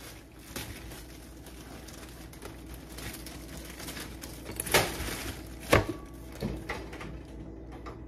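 Kitchen handling sounds: a pot and food being moved about, with a few light knocks and two sharper clunks about five and six seconds in, over a low steady hum.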